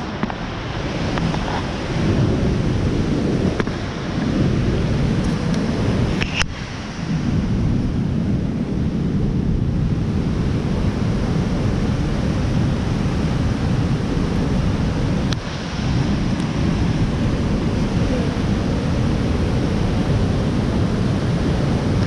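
Linville Falls' white water pouring and churning through a rock gorge: a steady rushing roar. Gusty low rumbling of wind on the microphone runs under it.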